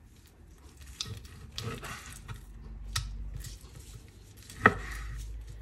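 Kitchen handling sounds: scattered light clicks and taps over a low steady hum, with one sharper click near the end.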